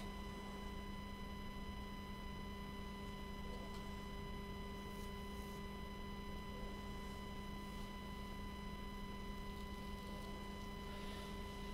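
Quiet, steady electrical hum with a few faint high steady tones over low background noise; nothing else happens.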